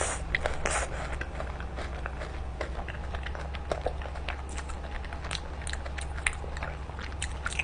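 Close-up chewing and biting of sauce-dipped street-food skewer balls: many short, irregular wet mouth clicks and smacks, over a steady low hum.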